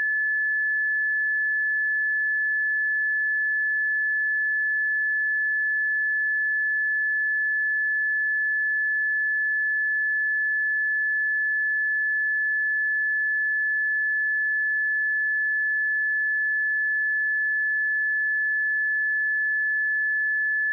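A pure 1728 Hz sine-wave test tone, one steady high pitch held at a constant level with no other sound.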